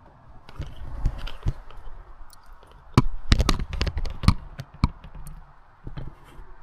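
Handling noise: rustling about half a second in, then a run of sharp knocks and clicks, densest between about three and five seconds in, with a last pair near six seconds.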